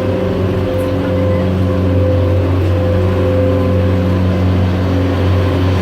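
Boat engine running steadily at cruising speed, a constant low drone.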